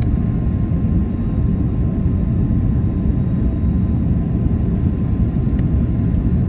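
Airliner cabin noise on final approach to landing: a steady low rumble of the engines and the airflow heard from inside the cabin.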